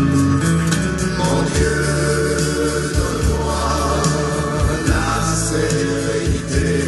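Music: a song with a singing voice over instrumental accompaniment.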